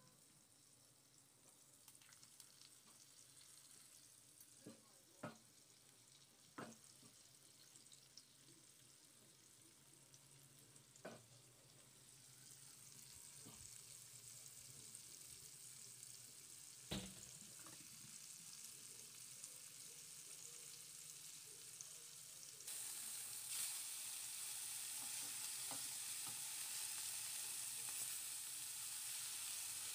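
Flour-coated fish pieces shallow-frying in oil in a small pan: a steady sizzle that builds from about halfway in and gets suddenly louder near the end. Earlier, a few short knocks and taps while the fish is being coated.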